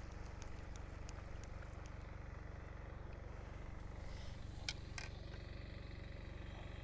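A steady low mechanical hum, like a distant engine, runs throughout. Over it come faint ticks in the first second or two, and two sharp clicks about five seconds in as a spinning reel and rod are handled.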